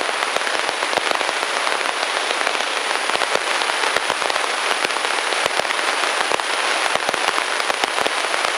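Crackling static from the airplane's nav radio in the headset audio, a dense hiss of clicks and pops with a thin steady high whine over it: the nav receiver's audio turned up to identify a VOR station by its Morse ident.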